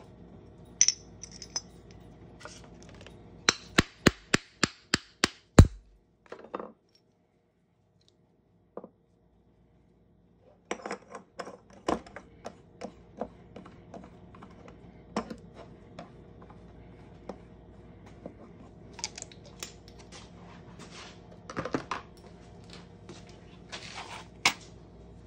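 Sharp metallic clicks and taps as a metal hole-punch die set is handled on a wooden workbench: a quick run of about eight taps a few seconds in, a few seconds of near silence, then scattered clinks and clatter.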